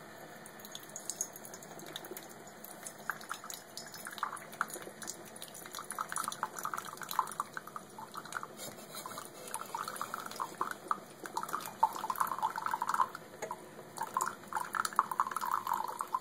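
Hot coffee pouring from a single-cup coffee brewer in a thin stream into a ceramic mug, an irregular splashing trickle. It starts faint and grows louder after a few seconds, then stops abruptly at the end.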